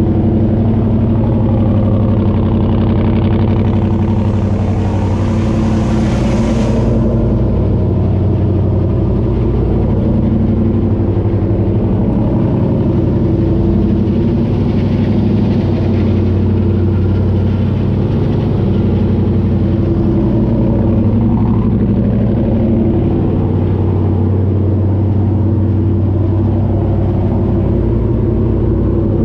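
Tube-chassis race car's engine running at a steady idle. A hiss rises over it about four seconds in and stops about three seconds later, with a fainter hiss again around the middle.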